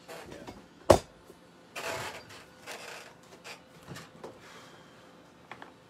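Handling noise: a sharp knock about a second in, then rustling and small clunks as headphones are put on and a studio microphone boom arm is pulled into place.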